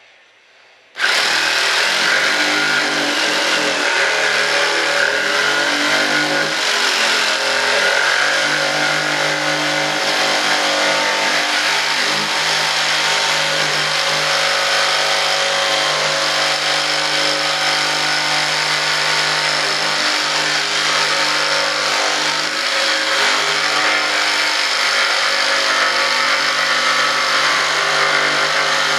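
Jigsaw starts up about a second in and runs steadily, cutting through the cured fibreglass-and-resin edges of a composite mold.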